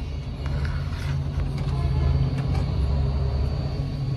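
Steady low rumble of a hot air rework station blowing while a small capacitor is desoldered from a laptop motherboard, with a few faint light clicks from tools.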